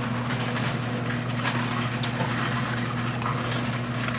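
Water sloshing and splashing as a plastic gold pan is shaken under water to settle the heavy concentrate, with faint scattered clicks, over a steady low hum.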